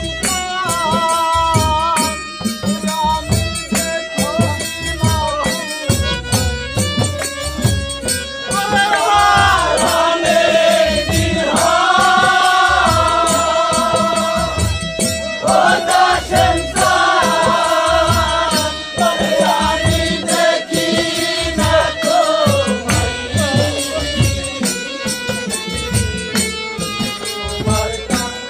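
Live Bengali folk music: a harmonium holds a drone and melody over a steady drum beat of about two to three strokes a second, with rattling hand percussion. A wavering melody line rises over it for a few seconds twice, around the middle.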